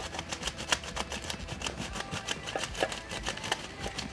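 Plastic Paterson developing reel being ratcheted, its two halves twisted back and forth to wind 35mm film onto the spiral: a quick, uneven run of small clicks.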